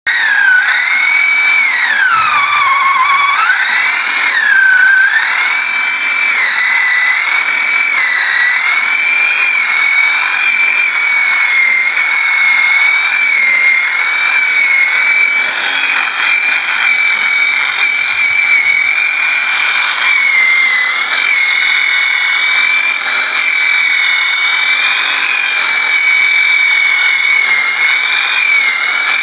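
Corded electric chainsaw cutting through a log: a loud, high motor whine that drops sharply in pitch twice in the first five seconds as the chain bogs down in the wood, then runs fairly steadily with small dips.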